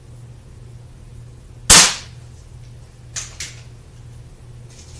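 Mondial RO71 .177 spring-piston air pistol firing once, a single sharp crack a little under two seconds in, followed about a second and a half later by two light clicks.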